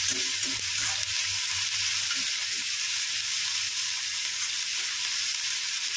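Chopped onion, garlic, ginger and green chillies sizzling in a little oil in a kadhai, with a steel spatula scraping and stirring through them. They are being fried until the onion turns light brown.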